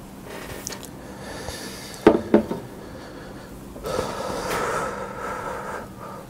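A heavy glass beer mug set down on a table with two sharp knocks a quarter-second apart, then a hissing noise lasting about two seconds.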